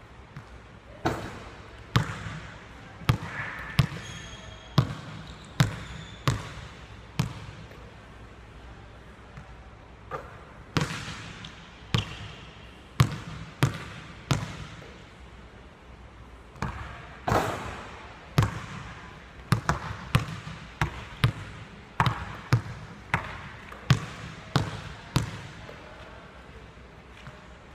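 A basketball bouncing on a hardwood gym floor: sharp, echoing bounces in runs of dribbles with short pauses between them.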